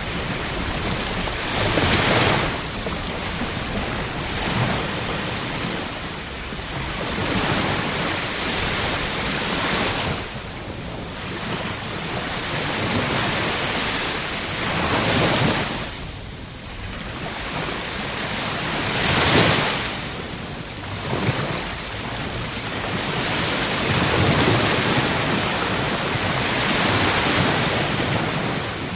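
Ocean surf: waves breaking and washing over a steady hiss of sea noise, a swell building and falling away every three to five seconds.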